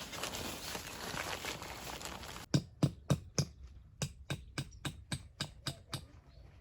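A quick run of about a dozen sharp knocks, each with a low thud, about three or four a second, starting suddenly a couple of seconds in after a stretch of steady outdoor noise.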